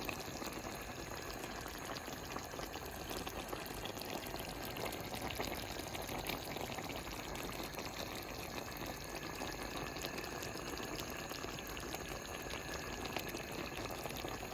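Pot of cabbage stew simmering on the stove over lowered heat, a steady bubbling with fine crackling ticks.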